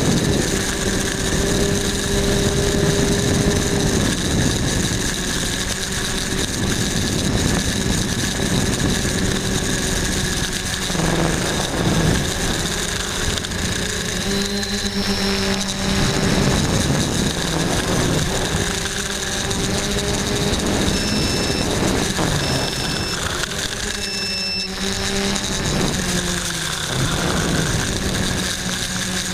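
Quadcopter motors and propellers buzzing, the pitch stepping up and down as the throttle changes. Three short high beeps come about two thirds of the way through.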